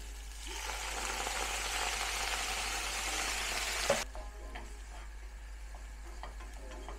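Water poured into a hot frying pan of shredded cabbage and onion hisses and sizzles loudly for about four seconds; this is steam-frying the vegetables with water instead of extra oil. Then it drops suddenly to a quiet sizzle with light clicks of wooden chopsticks stirring the vegetables in the pan.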